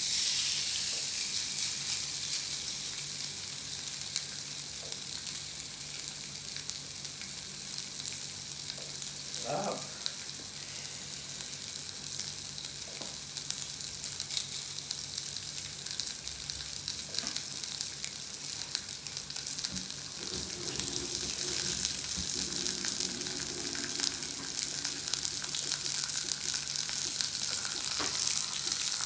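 Kingfish steak sizzling in olive oil on a hot ridged grill pan. The sizzle starts suddenly as the steak is laid down and runs on steadily, growing a little louder near the end.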